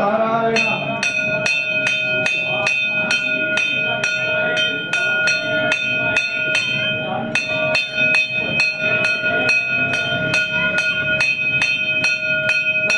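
Temple bell rung rapidly and steadily, about four strikes a second, its ringing tones held between strikes during the lamp offering. People's voices murmur underneath.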